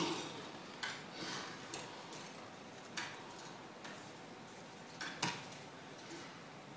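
Horse puppet's hooves knocking on the stage floor as it walks: a few short sharp knocks, unevenly spaced about a second apart, over a faint hush of a quiet hall.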